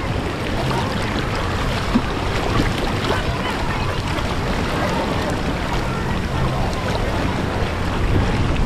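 Steady rush of water at a water-park lazy river, a continuous even noise with no clear speech.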